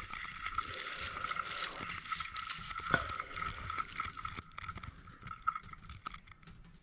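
Avalanche snow rushing and hissing over a helmet-mounted action camera's microphone as the rider is carried down in the slide, with a thin steady whine running through the noise. It dies away near the end as the slide comes to rest.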